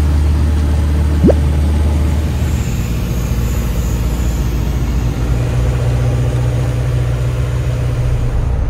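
Single-engine light aircraft's engine and propeller drone, heard inside the cabin in flight: a loud, steady low hum whose pitch shifts twice. A short rising chirp about a second in.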